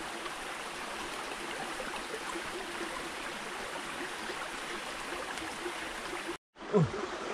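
Steady rushing of a nearby stream. It cuts out abruptly near the end and is followed by a brief, louder sound that sweeps in pitch.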